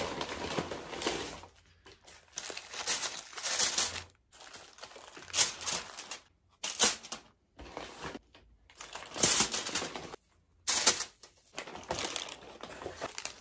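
Paper fast-food bags and wrapped burgers crinkling and rustling as they are unpacked and set down on crinkly aluminium foil, in irregular bursts with short pauses between.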